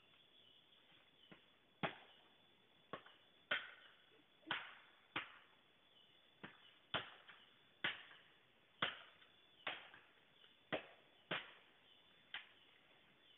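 Chopping into bamboo with a blade: about a dozen sharp strikes at roughly one a second, each with a short ring.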